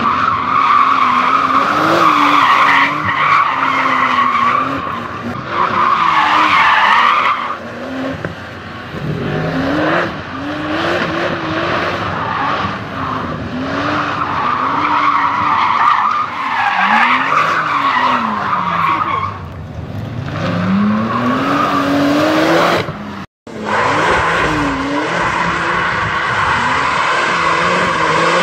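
Porsche 911 Turbo S twin-turbo flat-six revving up and down while drifting, with tyres squealing and skidding on pavement. The revs rise and fall every couple of seconds. The sound cuts out for a moment near the end, then goes on with another car doing donuts.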